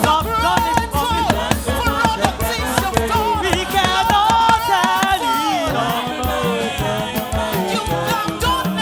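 Live gospel praise music: singers over a band with a driving, fast percussion beat.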